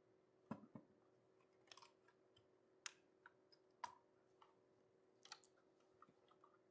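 Faint, irregular clicks and ticks of small tank-model kit parts being handled and fitted together, about a dozen spread unevenly over several seconds.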